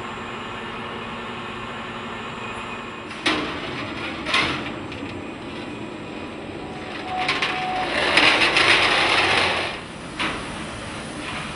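SPIRO Curvecutter Delta 1500 sheet-metal segment cutting machine running with a steady hum. Two sharp knocks about a second apart, then a louder noisy stretch of about two and a half seconds, and one more knock near the end.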